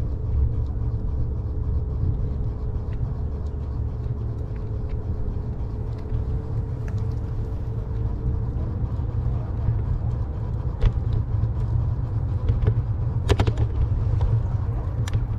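Steady low outdoor rumble, with a faint steady hum that fades away about halfway through and a few sharp clicks near the end.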